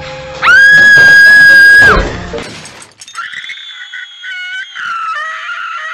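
A woman's scream, very loud, high-pitched and held steady for about a second and a half, cutting off abruptly with a thud. After a short pause a quieter, high, wavering scream or squeal follows, with quick warbles in it.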